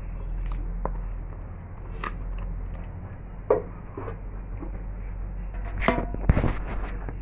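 Kitchen handling sounds of a plastic bowl and utensils: scattered light knocks and clicks, one sharp click about three and a half seconds in and a cluster of knocks and scraping near six seconds, over a steady low hum.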